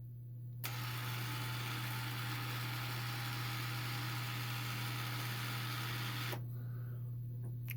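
Yaesu G-1000SDX antenna rotator being run from its controller: a click, then an even mechanical running noise for about five and a half seconds that stops abruptly, over a steady low electrical hum.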